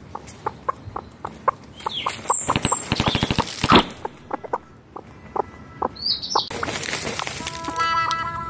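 Chickens clucking softly in short, regular clucks, two or three a second, with a burst of wing flapping and scuffling in the dirt about halfway through and another shorter burst near the end.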